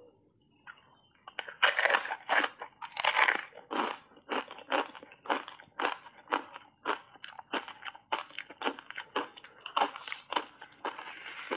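Thin block ice coated in matcha powder being bitten and chewed: a run of sharp crunches, about two a second, starting about a second in and loudest in the first few seconds.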